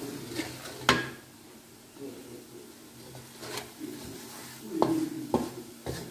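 A spatula scraping and clacking against an aluminium karahi while stirring onions, green chillies and spices frying in oil, over a low sizzle. The sharpest clack comes about a second in, with several more near the end.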